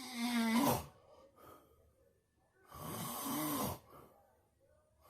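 Loud snoring from a sleeper: one long snore at the start and another about three seconds in, each an in-breath with a buzzing pitched note under a noisy rasp, with quiet breathing between.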